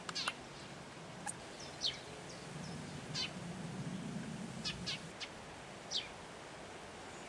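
Young long-eared owls giving their high, squeaky begging call: about six short squeaks, each falling in pitch, spaced a second or so apart.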